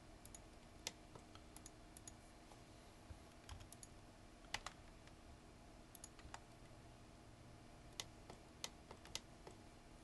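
Faint, irregular clicks of a computer mouse and keyboard, about a dozen scattered through, over a low steady hum.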